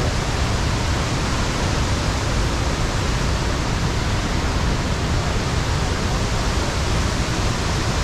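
Steady, dense rush of water from Iguazu Falls, an even noise with no breaks.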